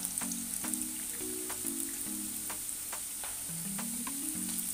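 Ghee sizzling in a small pan, a steady hiss with scattered sharp crackles, under a slow background music melody of held notes.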